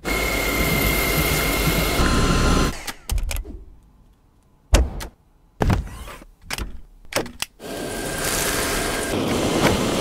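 Dyson V8 Absolute cordless vacuum running with a high whine for about two and a half seconds, then cutting off. A series of sharp clicks and knocks follows, and the vacuum runs again with its whine near the end.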